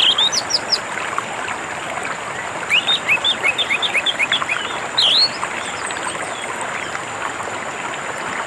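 Orange-headed thrush singing over steadily running water. It gives a few quick rising notes at the start, a rapid series of about a dozen short repeated notes from about three seconds in, and one loud swooping note around five seconds in.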